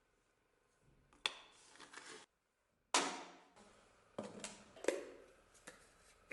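A series of metal clanks and knocks as steel objects are handled and set down on a workbench. The loudest comes about three seconds in, followed by several lighter ones, each with a short ringing tail.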